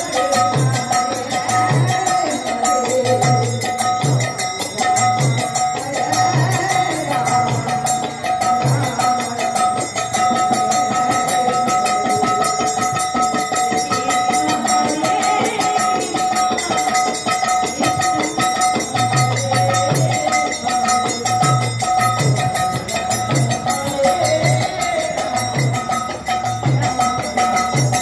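Live devotional kirtan music: women's voices singing over a harmonium's sustained reed notes, with a hand-played barrel drum beating a steady rhythm. The drum drops out for several seconds around the middle and then comes back in.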